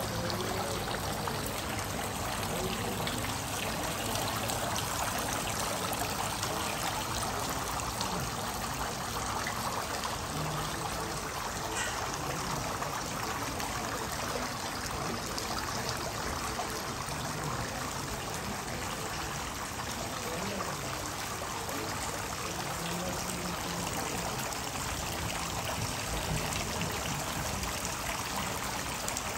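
Water trickling and splashing steadily from a tiered marble fountain, falling from basin to basin.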